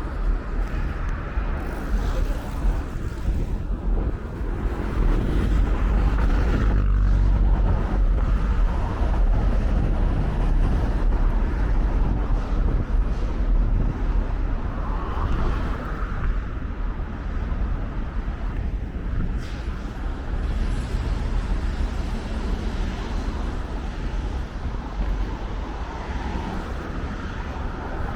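Road traffic noise: cars and other vehicles passing steadily, with a heavy low rumble.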